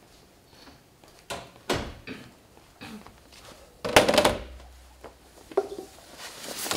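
A person arriving and sitting down at a desk: a few knocks, then a loud thump about four seconds in as the chair is moved and the person settles in.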